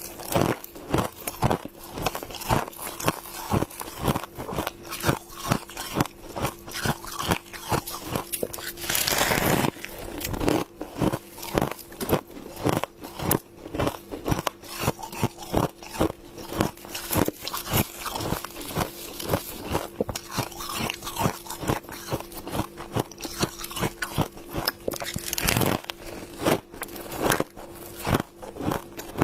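Close-up crunching and chewing of humidifier frost: dense, crisp bites several times a second. A longer noisy burst comes about nine seconds in.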